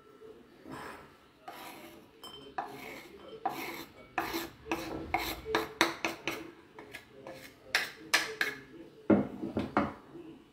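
Chopped garlic being scraped off a wooden cutting board into a ceramic bowl: a quick run of short rasping scrapes and light knocks, several a second, as the board is tipped and scraped against the bowl, with louder knocks near the end.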